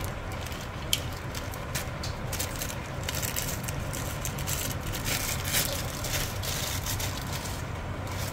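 Plastic packaging and foam wrap crinkling and crackling in irregular bursts as they are handled, over a steady low hum.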